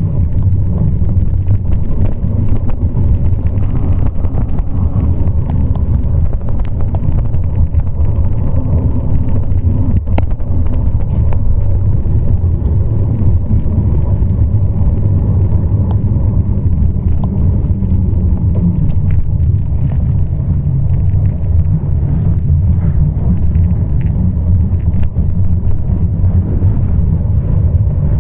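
Wind buffeting the microphone of a camera carried on a moving bicycle: a steady low rumble, with scattered light clicks and knocks from the ride.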